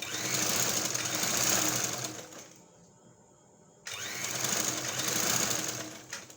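Sewing machine running as it stitches a seam, in two runs of about two seconds each, separated by a short pause. The second run starts abruptly near the middle.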